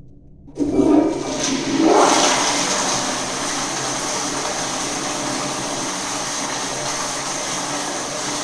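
Toilet flushing: a sudden rush of water about half a second in, a second surge a moment later, then a steady rushing of water draining through the bowl.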